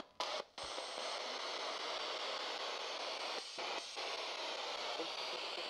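Handheld spirit box radio sweeping through stations, giving a steady hiss of static that drops out briefly a few times as it hops from channel to channel.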